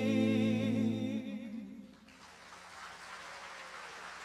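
A woman's sung final note, held with vibrato over a sustained bass guitar note, ends about two seconds in. Faint audience applause follows.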